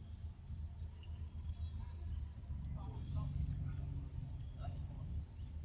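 Insect chirping in the forest: short, high chirps repeated about once a second, over a steady low rumble.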